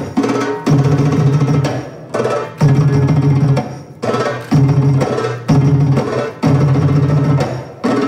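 Belly-dance drum solo music: a goblet drum (darbuka) playing about five runs of rapid rolled strokes, each about a second long with a short break between them.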